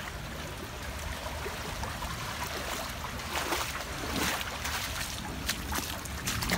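Floodwater runoff flowing across flooded ground, with a few short splashes between about three and six seconds in.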